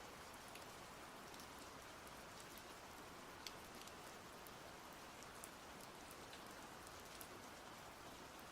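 Quiet, steady rain: an even hiss with scattered sharp ticks of individual drops.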